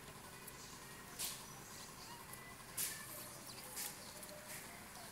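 Four short, faint rasping sounds, about a second apart, from cats at close range as one cat licks the other's head and fur.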